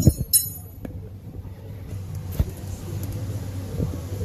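Handling noise from a phone camera being moved around under a truck: a few knocks and a brief high squeal right at the start, a single click about two and a half seconds in, over a steady low hum.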